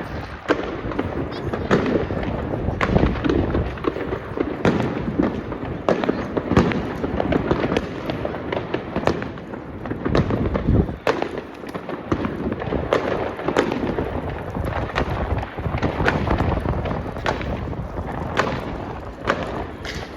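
Fireworks going off continuously: many sharp bangs in irregular quick succession over a steady low rumble of overlapping bursts.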